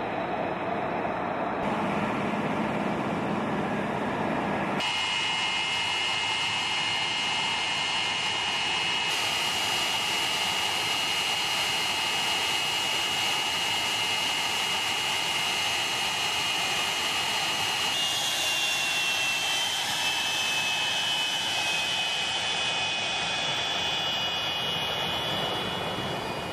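F-86 Sabre jet fighter's turbojet engine running with a steady rushing roar and a high whine. From about two-thirds of the way through, the whine shifts and wavers in pitch.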